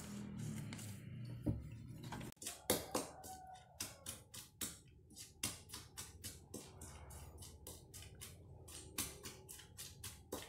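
Coconut milk dripping and splashing as grated coconut is squeezed through a mesh sieve. About two seconds in this cuts off, and background music with a quick clicking beat of about two to three clicks a second follows.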